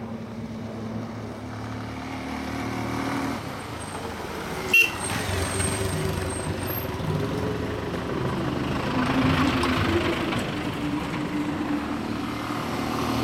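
Motorcycles running along a road, their engine notes shifting up and down in pitch over road noise. There is a short, sharp loud sound about five seconds in.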